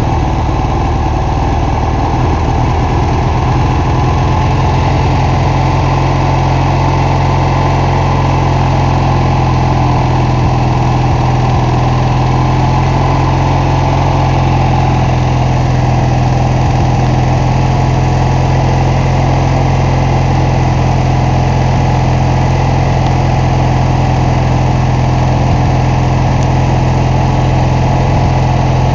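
MTD lawn tractor's engine running steadily on its first run after sitting through the winter, a little uneven for the first few seconds and then settling.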